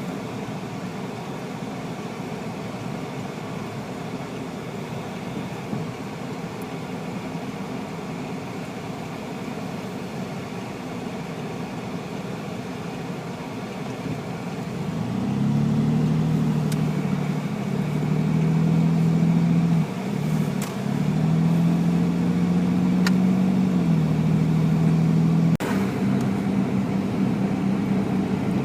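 Car driving on a snowy road, heard from inside the cabin: steady road and engine noise. About halfway in it gets louder, and a low engine hum joins it that shifts up and down in pitch a few times as the car changes speed.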